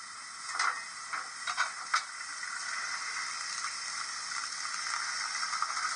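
Steam injector sound effect from a DCC sound-fitted model steam locomotive's decoder and speaker: a few light clicks, then about two seconds in a steady hiss of steam and water that slowly builds.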